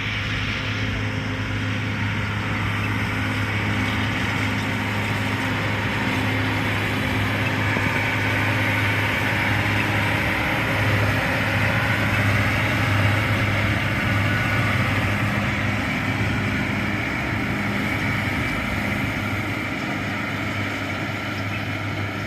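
A tractor engine running steadily at constant speed with an even low hum. A broader rushing noise over it grows a little louder in the middle.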